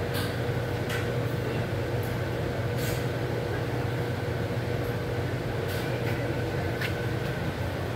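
A steady machine hum with a low drone and a thin constant tone, broken by a few sharp, light clicks or taps.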